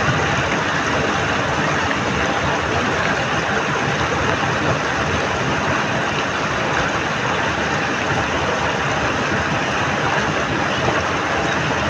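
Muddy floodwater rushing steadily through a narrow cut in a mud embankment.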